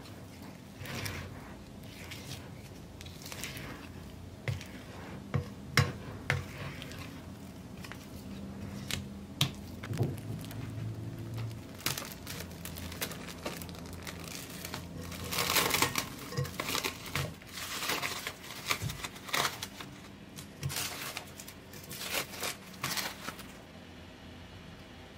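A spatula working sticky bread dough in a glass bowl, with scattered clicks and scrapes against the glass. Then plastic cling film crinkles and rustles in bursts as it is handled over the bowl, loudest in the second half.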